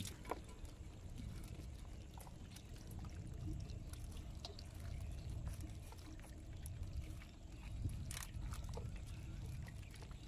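Wet nylon fishing net being handled over a boat, with a catch of small fish and crabs inside: water trickling and dripping, and scattered small clicks and rustles, one sharper click about eight seconds in, over a low steady rumble.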